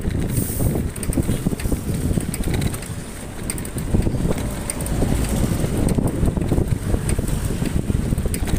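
Wind buffeting the microphone of a handlebar-mounted phone on a moving motorbike: a loud, fluctuating low rumble of wind and road noise.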